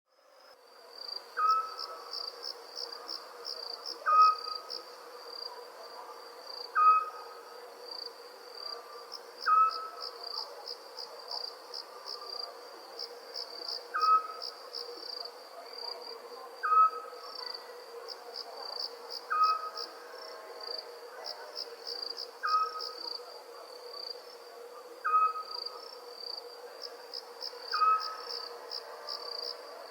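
Crickets chirping in a steady pulsing trill under a faint steady hum. A short, louder call from another night animal repeats regularly about every two and a half to three seconds.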